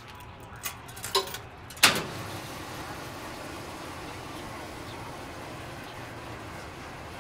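Light clicks and clinks, then a single sharp bang about two seconds in. After it a commercial front-loading washing machine runs with a steady, even hum.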